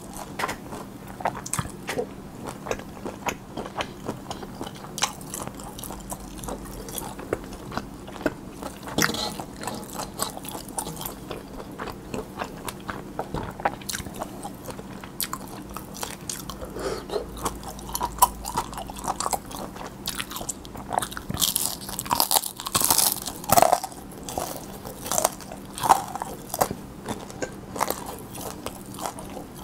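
Close-miked chewing and biting of cold spicy noodles with crunchy young radish greens and fried dumpling: wet mouth clicks and crunches, with a louder burst of noisy slurping and crunching about two-thirds of the way through. A faint steady hum lies underneath.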